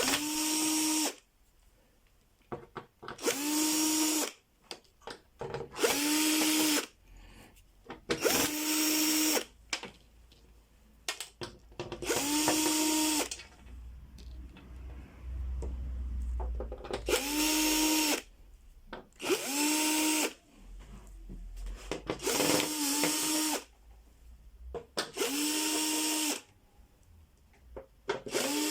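Electric screwdriver backing out screws, about ten short runs of a second or so each, the motor spinning up quickly to a steady whine and stopping between screws.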